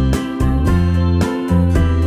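Instrumental background music: keyboard chords over a steady bass, the notes changing several times a second.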